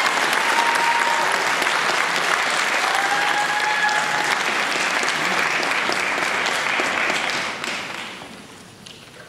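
Audience applauding, with some cheering. The applause dies away about eight seconds in.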